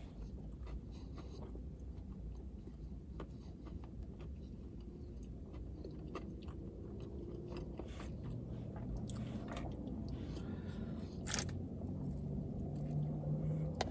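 A person biting into and chewing a crispy fried chicken sandwich close to the microphone, with scattered crunching and mouth clicks.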